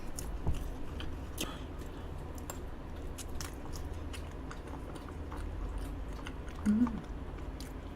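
Close-miked chewing of soft, dense Ice Box cake, chocolate cookie layers with cream: many small wet mouth clicks and smacks. A brief hummed 'mm' comes about seven seconds in.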